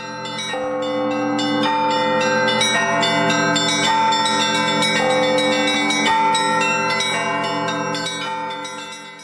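Ringing bell tones struck over and over in a changing pattern, fading in at the start and fading out near the end.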